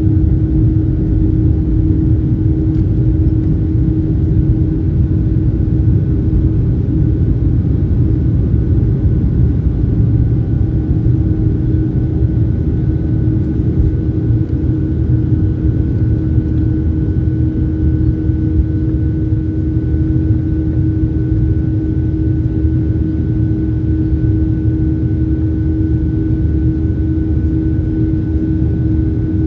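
Jet engines of a Ryanair Boeing 737 heard from inside the cabin: a steady, loud low rumble with a constant hum, holding even with no spool-up or change in pitch.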